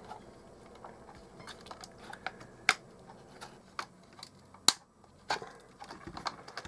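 Irregular plastic clicks and knocks from prying apart and handling the clipped-together plastic case of a clock radio, with a couple of sharper snaps about a third and two-thirds of the way through.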